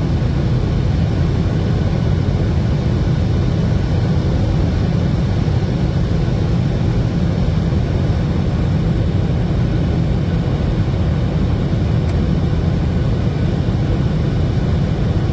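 Cabin noise inside a Boeing 737-800 climbing after takeoff: the CFM56-7B jet engines and the airflow make a steady low drone, heard from a window seat over the wing.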